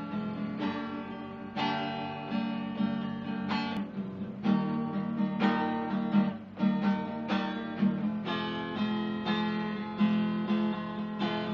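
Acoustic guitar strummed, a steady run of chords.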